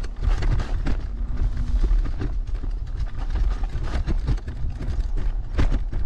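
Heavy electric scooter jolting over a rough forest dirt track: a steady low rumble with irregular knocks and rattles as the frame and deck shake over the bumps.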